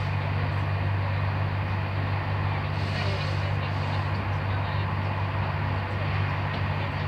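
Interior running noise of a Corail passenger coach on the move: a steady low hum under an even rush of wheel and rail noise.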